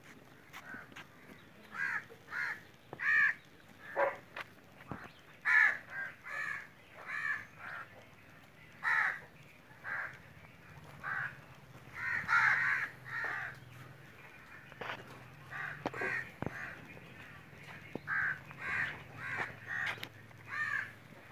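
Birds calling: many short calls of about a third of a second each, repeated irregularly, sometimes several in quick succession.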